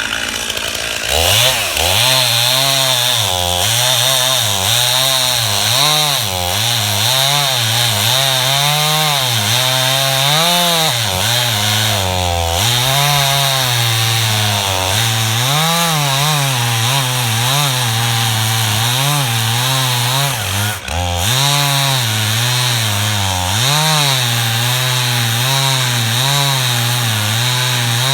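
Stihl MS291 two-stroke chainsaw with a 20-inch bar revving up about a second in and cutting through a log. The engine pitch rises and falls as the chain works through the wood, and dips sharply and recovers about three quarters of the way through.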